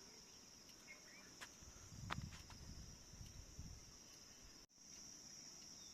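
Faint, steady, high-pitched insect drone in the background, with a soft low rumble about two seconds in and a brief dropout near the end.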